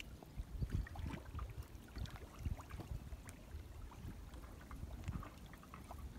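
Water sloshing and splashing with irregular low knocks and thuds, as of a small boat or people moving in shallow water.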